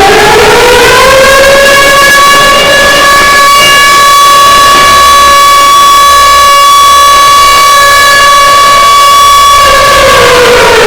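Civil defense siren sounded for a moment of silence, very loud. It finishes winding up about a second in, holds one steady high wail for about eight seconds, then begins to wind down near the end.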